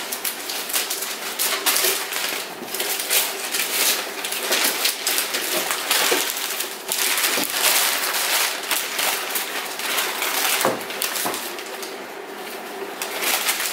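Paper and packaging rustling and crinkling in irregular bursts as a present is unwrapped.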